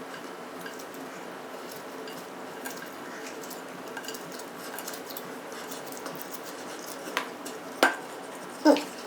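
Eating sounds: a utensil clicking against a takeout container, light scattered taps, then two sharper clicks near the end.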